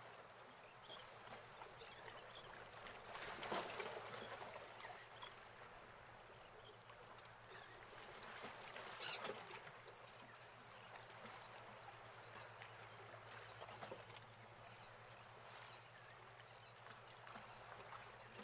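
Faint outdoor ambience with scattered short high bird chirps over a low steady hum, and a quick run of louder short calls about nine seconds in.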